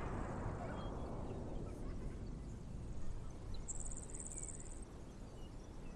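Soft outdoor ambience. A low hiss fades away over the first few seconds, and a brief high chirping trill, like an insect, comes a little before the halfway point.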